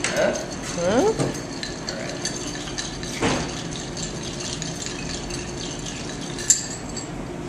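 Bar spoon stirring cracked ice in a glass mixing glass: a soft, steady rattle of ice against glass. A man's brief singing or humming comes in over it in the first second or so.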